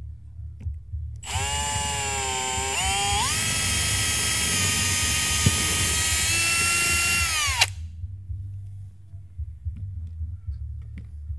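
Milwaukee Fuel brushless cordless drill running a bit into a wooden board: a loud, high motor whine starts about a second in, steps up in pitch a couple of seconds later, holds steady, then dips and stops suddenly after about six seconds.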